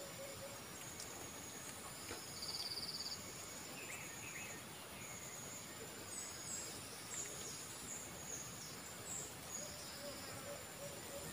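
Faint tree-canopy ambience: insects keep up a steady high-pitched drone, with a short rapid trill about two and a half seconds in and scattered small-bird chirps later on. Near the end a series of evenly spaced low notes begins.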